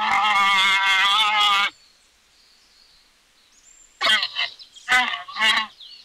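Alpacas giving wavering alarm calls: one long call that breaks off a little under two seconds in, then after a pause a string of short calls near the end.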